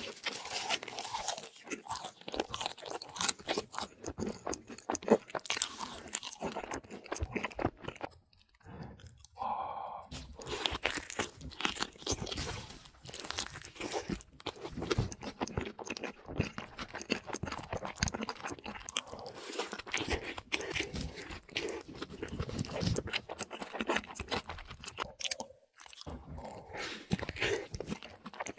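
Close-miked mukbang eating: crunching bites and chewing of fried food and a burger dipped in cheese sauce, with a couple of short pauses.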